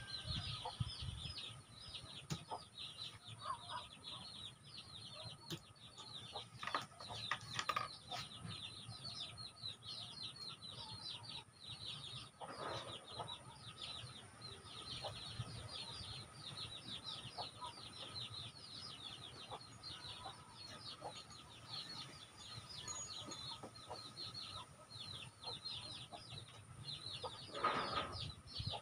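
Chickens in the background: a steady stream of rapid high chirps, with a louder, fuller call about halfway through and again near the end.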